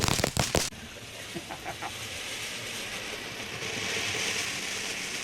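Consumer firework going off: a dense crackle of rapid pops for the first moment, then a steady spraying hiss of sparks that grows louder a little past the middle.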